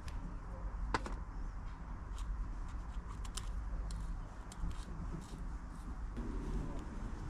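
Small scattered metallic clicks and taps of hand work on a Brompton front wheel hub while a new bearing is fitted, with one sharper click about a second in.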